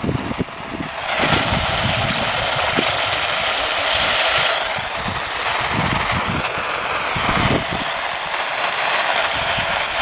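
Static hiss of an AM radio pulling in a weak, distant station at night. The hiss swells up about a second in and holds steady, with faint muffled fluttering of the station's audio underneath.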